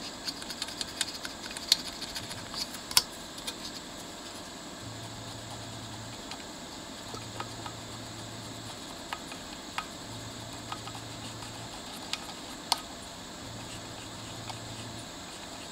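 Light clicks and taps from a cassette deck mechanism being handled while its capstan is cleaned with a cotton swab: a cluster of small ticks in the first few seconds, then a few scattered clicks. A faint low hum comes and goes in spells of about a second and a half.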